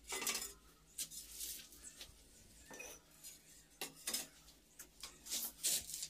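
Ceramic floor tiles being handled and tapped down as they are laid: scattered, irregular clinks and knocks of tile against tile and of a wooden handle on tile, with a few short scrapes.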